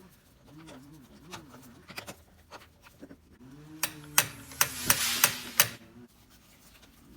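Small parts and hand tools clicking and knocking during mower reassembly, with a cluster of sharp clicks and a short rasping noise about four to six seconds in. A low, wavering hum-like tone comes and goes under it.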